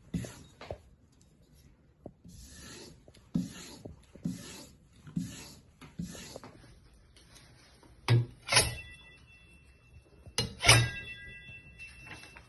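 Chinese cleaver blade swept in even strokes along a hone to finish the edge, about one stroke a second. Near the end come two sharp metal knocks, a couple of seconds apart, each leaving the blade ringing.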